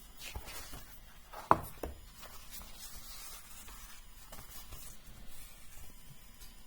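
Paper handling: pages of an old notebook being turned and rustled, with small clicks and one sharp click about a second and a half in.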